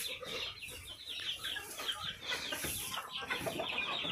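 Chickens clucking, a rapid run of short high calls repeating several times a second.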